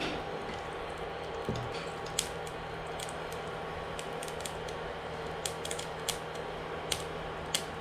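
Mustard seeds starting to pop in hot coconut oil in a frying pan: scattered sharp pops beginning about two seconds in, over a steady hum.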